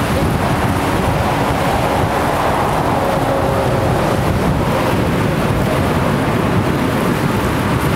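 Turbofan engines of an Airbus A320-family airliner running as it rolls along the runway: a steady rushing noise, mixed with wind rumbling on the microphone.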